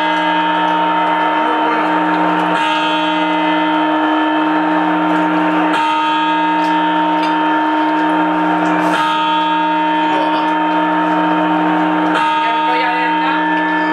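Clock bell striking the New Year's midnight chimes: four strokes about three seconds apart, each ringing on into the next. Each stroke marks one of the twelve grapes to be eaten.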